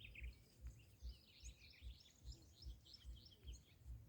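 Faint chorus of small birds chirping, with many short high calls throughout. Soft low thuds recur evenly, about two to three a second.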